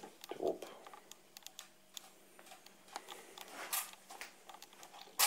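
Scattered light clicks and taps, with a soft thump about half a second in and a louder brief rustle-like burst near four seconds.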